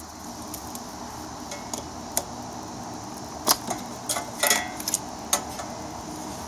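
Scattered clicks and rustles of paper towel being stuffed in around a lawn mower's carburetor, over a steady low background hum. The loudest clicks come about three and a half and four and a half seconds in.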